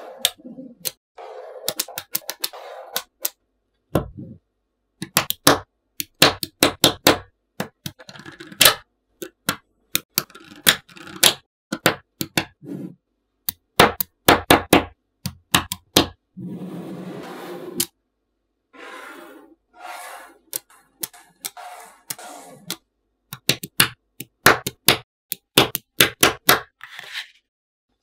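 Small neodymium magnetic balls clicking sharply as they snap onto one another, in quick runs of clicks broken by short silent gaps, with a couple of stretches of scraping in the middle.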